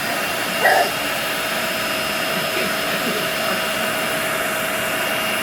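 Vacuum cleaner running steadily, an even rush of air with a constant whine. About a second in, a toddler gives a short yell over it.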